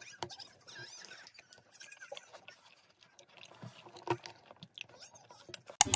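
A wooden spoon scraping and clicking in a clear plastic tub of Greek yogurt and granola, with soft crunching as the granola is eaten. A single sharp click comes near the end.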